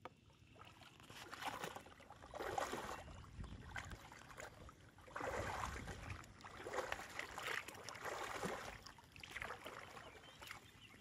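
Water splashing and sloshing in a series of uneven surges, each lasting about a second.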